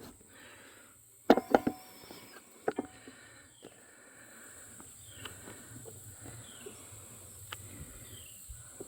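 A few sharp knocks and clicks, the loudest a quick cluster about a second in and another near three seconds, over a steady high-pitched insect drone. In the second half a short falling chirp repeats about once a second.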